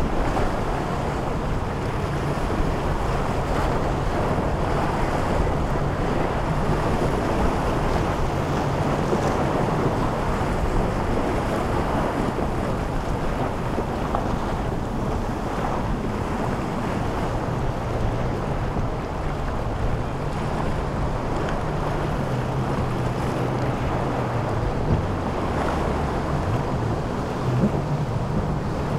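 Motorboat engine droning, its pitch wavering and shifting lower for a while after about twenty seconds, over a steady wash of surf and wind noise on the microphone.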